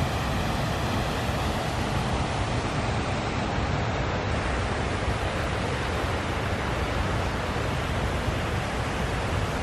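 Water pouring and splashing down a cascading concrete fountain into its pool, a steady rushing noise.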